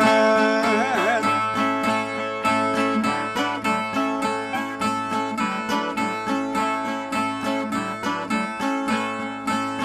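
Ten-string Northeastern Brazilian violas (viola nordestina) strummed in a steady rhythmic interlude between sung stanzas of a repente. The tail of a held sung note fades out about a second in.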